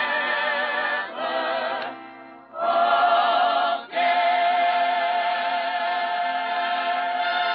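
Chorus of voices singing in short phrases with brief breaks, then holding one long chord with vibrato from about four seconds in, heard through the narrow, dull sound of an old radio broadcast recording.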